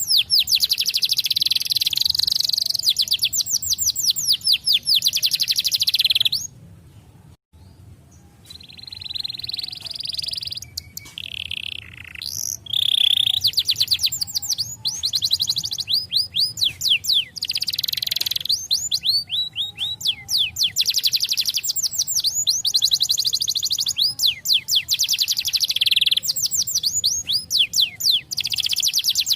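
Canary singing long, rapid trills of repeated falling notes, high-pitched and loud. The song breaks off about six seconds in, comes back with a few softer, varied notes, and returns to full fast trills near the halfway point.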